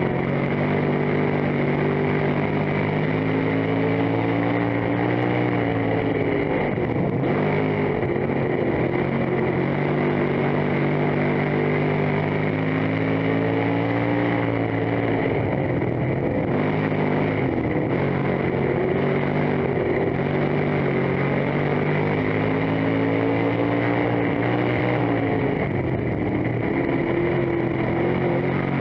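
Dirt-track race car's engine heard from inside the cockpit, running hard under racing load. Its pitch climbs as it accelerates and drops as it lifts off, in a cycle that repeats about every ten seconds, once per lap.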